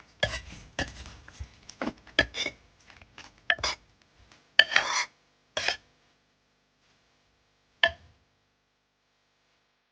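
Dishes and utensils clattering: irregular clinks and knocks, several a second for about six seconds, then one last clink near eight seconds in.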